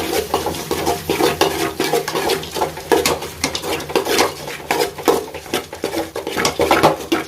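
A ladle scraping and knocking against a cooking pan in quick, irregular strokes, stirring chicken pieces that are frying dry in oil and their own juices with no water added.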